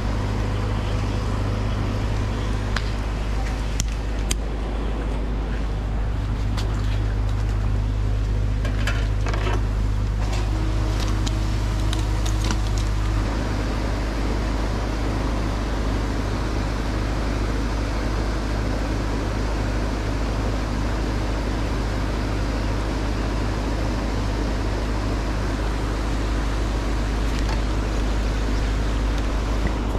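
A steady low machine hum runs without change, with a few light clicks scattered through the first half.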